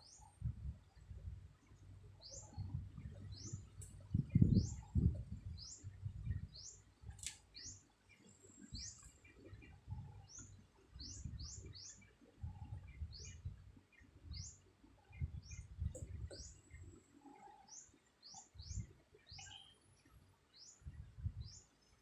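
A bird chirping: short high notes, each falling in pitch, repeated irregularly about once a second, over soft irregular low rumbles, the loudest about four seconds in.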